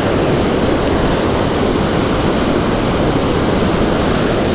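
Steady rush of surf breaking and washing up the beach, with wind rumbling on the microphone.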